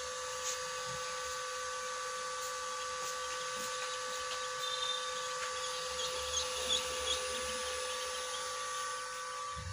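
Newly hatched ducklings shuffling and scratching on the floor of an incubator tray, over a steady electrical hum. A few faint high chirps come about five to seven seconds in.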